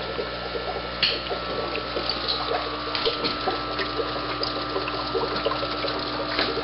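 Aquarium filtration running: a steady hum with water trickling and bubbling, and a sharp click about a second in.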